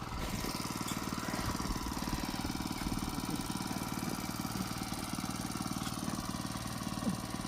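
A small engine running steadily at constant speed with a fast, even pulse.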